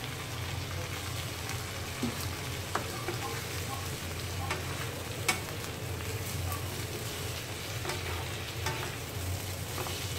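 Tofu cubes with green chilli and onion sizzling in a nonstick frying pan while being tossed with two wooden spatulas, with scattered knocks and scrapes of the spatulas on the pan, the loudest about five seconds in. A steady low hum runs underneath.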